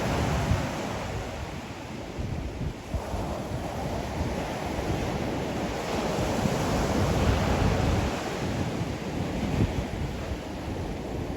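Ocean surf breaking and washing on the shore, swelling near the start and again more strongly in the middle, with wind rumbling on the microphone.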